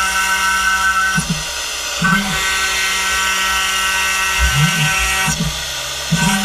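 CNC milling machine cutting carbon fiber: a steady high spindle whine with several tones, its character shifting about a second in, two seconds in and again near five seconds. Short low motor tones rise and fall several times as the axes move.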